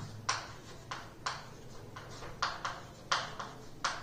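Chalk writing on a chalkboard: a string of short, sharp chalk strokes and taps at an uneven pace, about nine in four seconds, as a word is written out.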